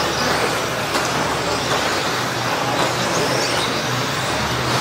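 1:10 scale electric stadium trucks racing on an indoor clay track: a steady, even rush of motor and tyre noise.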